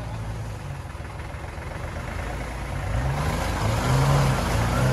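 Tractor engine running under load while it tows a jeep stuck in mud. About three seconds in it revs up and gets louder, with the pitch rising and then falling, as it strains on the tow rope.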